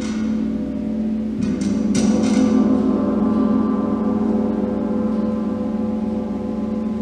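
Large gong struck a few times in the first two seconds, then left ringing as a deep, sustained wash of many overlapping tones.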